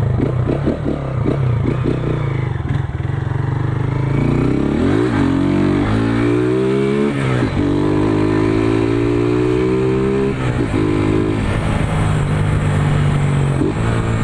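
Single-cylinder 150 Start motorcycle with a Roncar ML Competition exhaust, ridden and accelerating. The engine pitch climbs, drops back sharply about 7 and 10.5 seconds in, then holds steady. The exhaust note is deep, and the exhaust is leaking where the pipe meets the engine.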